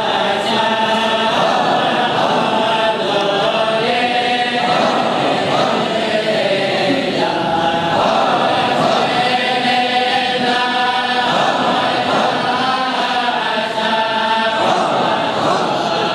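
A group of men's voices chanting a devotional song together in unison, continuous and steady in level.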